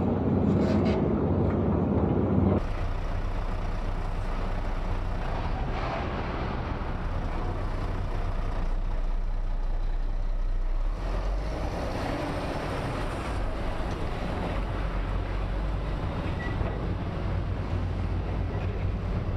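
Diesel engine of heavy demolition plant running steadily. The sound changes abruptly about two and a half seconds in.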